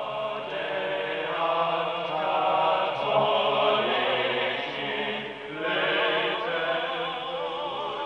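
A choir singing slow sacred music, several voices holding long notes together, some of them wavering in pitch about six seconds in.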